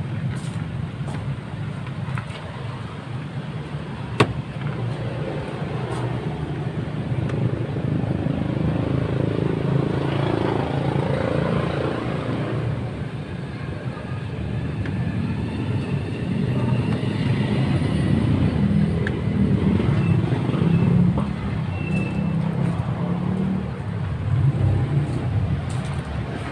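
Mitsubishi Mirage's three-cylinder engine idling steadily, with one sharp click about four seconds in.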